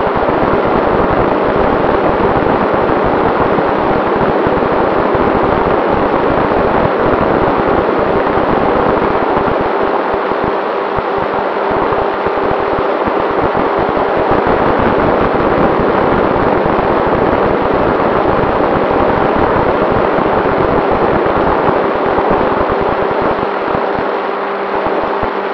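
Durafly Tundra RC plane's electric motor and propeller running at a steady, unchanging pitch, heard through a loud rush of wind and buffeting on the onboard camera's microphone.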